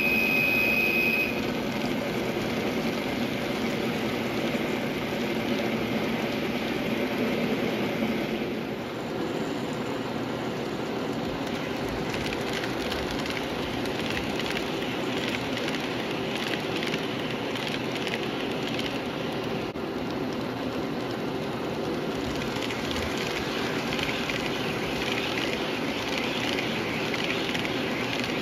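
KATO N-gauge model train, a diesel locomotive pulling blue passenger coaches, running on sectional track: a steady motor hum with the rolling rattle of small wheels and a brief high whine at the start. From about nine seconds in there is a continuous run of fine, fast clicks as the coaches' wheels roll over the track crossing.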